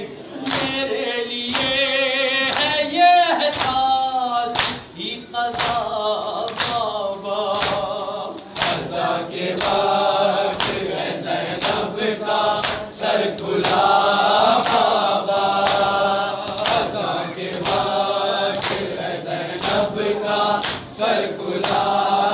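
A Shia noha (Urdu lament) sung by a lead male voice and a group of men chanting with him, kept in time by rhythmic matam, open-handed chest-beating strikes at about one and a half a second.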